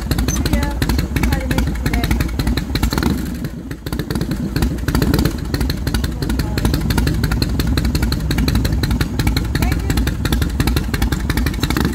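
Harley-Davidson V-twin motorcycle engine idling with a steady, rapid loping rumble.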